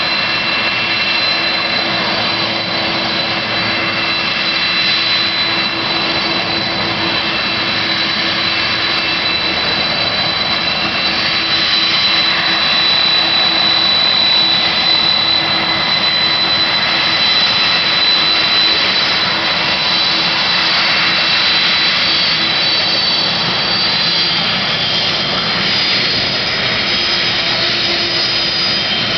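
Boeing 747's jet engines running loudly for take-off: a steady roar with a high whine over it, growing a little louder partway through.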